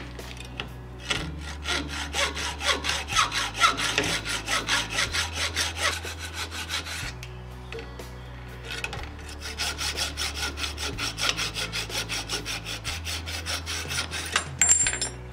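Hand hacksaw cutting through a solid aluminium block clamped in a vise, in quick, even back-and-forth strokes. The sawing stops for about two seconds midway, then starts again.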